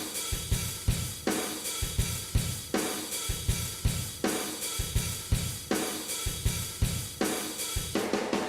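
Background music: a drum kit playing a steady beat of kick drum, snare and cymbals, with a cymbal crash about every second and a half.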